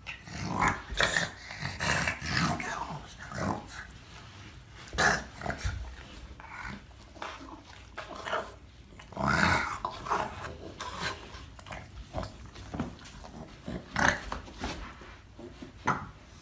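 A dog growling and grunting playfully in short, irregular bursts while it wriggles on its back down carpeted stairs.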